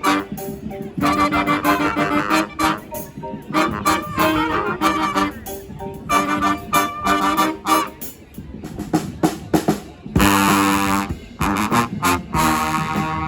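Brass band playing: saxophones, trombones and trumpets sounding held notes and short phrases over sharp drum hits, the whole band coming in louder about ten seconds in.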